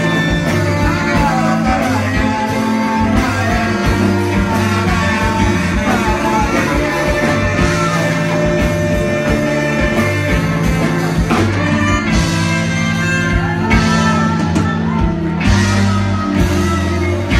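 Live band playing a rock-style number: electric guitars, bass and drum kit with saxophones, loud and continuous.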